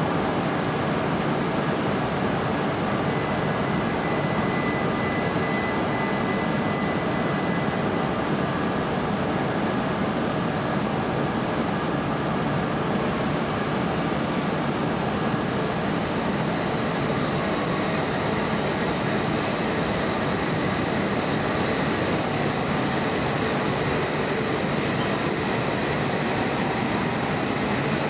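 E5 and E6 series Shinkansen train standing at a station platform with a steady hum of its equipment, then starting to pull out: a faint rising motor whine creeps in near the end as it gathers speed.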